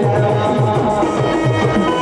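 Band music: a keyboard melody held over a quick, steady drum beat of about five strokes a second.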